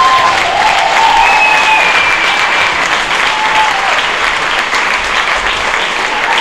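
Theatre audience applauding loudly after a dance performance, with a few long whistles over the clapping in the first few seconds.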